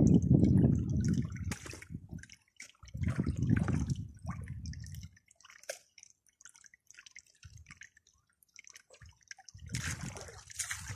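Water splashing and running through a highbanker's hopper and sluice in bursts: two heavy gushes in the first five seconds, a near-quiet stretch with small clicks, then a hissier splash near the end.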